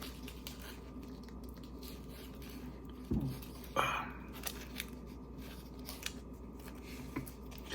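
A plastic-wrapped meat stick being worked open: a few short clicks and crinkles, the two loudest about three and four seconds in, over a faint steady hum.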